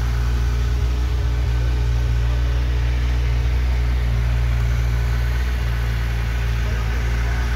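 Kawasaki Versys 1000's inline-four engine idling steadily, a constant low, even running note.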